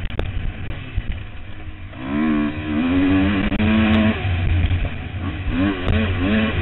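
KTM 250 EXC-F's single-cylinder four-stroke engine under a rider on a dirt track: it runs quieter off the throttle for the first couple of seconds, then revs up hard about two seconds in, eases off around four seconds, and climbs in pitch again near the end.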